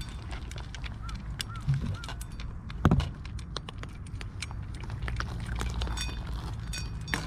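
Cats chewing and lapping food from a shallow metal dish, with many small clicks of teeth and tongue against the metal and a sharper knock about three seconds in.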